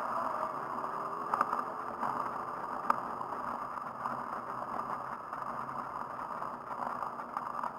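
Steady rushing of a hand-cranked racing handbike rolling at speed on asphalt, heard from a camera mounted on the bike, with wind over the microphone. Two sharp clicks come about a second and a half and three seconds in.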